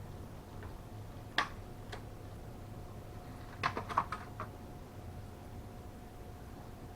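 Light hard-plastic clicks and taps from handling RAM memory modules in an open desktop computer case: one sharp click about a second and a half in, then a quick cluster of clicks around four seconds in, over a faint steady hum.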